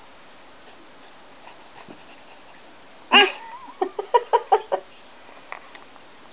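A 3½-month-old baby babbling: about three seconds in, one loud squeal with a wavering pitch, followed by a quick run of about six short, clipped cries over the next second or so.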